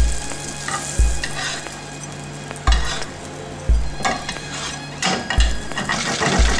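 Brick-pastry parcel frying in butter and oil, sizzling, with a metal spoon scraping and basting in the pan. A short low thud recurs about every one to two seconds in an uneven short-long rhythm.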